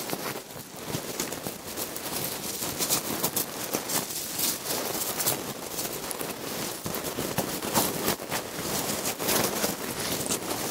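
Designed sound effect of a small creature burrowing and rustling: continuous dry crackling and scratching, dense with tiny clicks.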